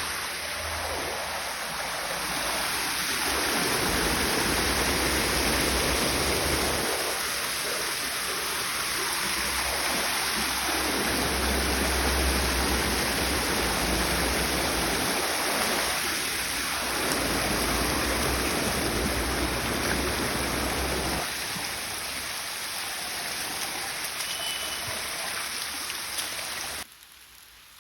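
Steady rushing noise like running water, with low rumbles of wind on the microphone coming and going; it cuts off abruptly about a second before the end.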